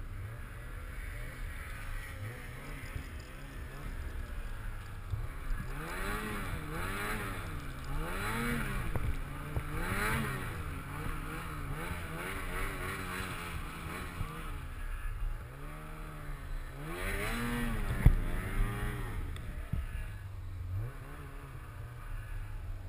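Snowmobile engine revving up and down over and over, its pitch rising and falling every second or so, strongest through the middle stretch. A single sharp knock comes about three-quarters of the way through.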